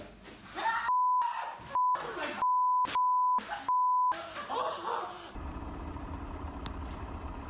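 A man's scream of fright, then his swearing bleeped out: five flat censor tones over about three seconds, with shouting and laughter in the gaps. About five seconds in, the sound cuts to a steady low rumble.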